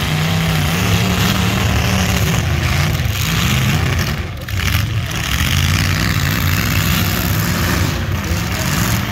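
A loud car engine running, its pitch wavering up and down as it is revved, with a short dip about four seconds in.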